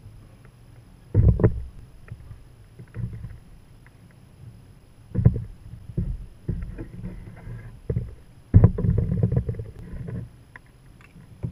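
Kayak on the water: irregular paddle strokes and water sloshing against the hull, with three louder bursts, the last about a second long.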